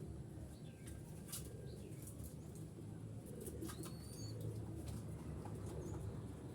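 Perkutut (zebra doves) cooing and moving about, with scattered sharp clicks and a short high rising chirp about halfway through.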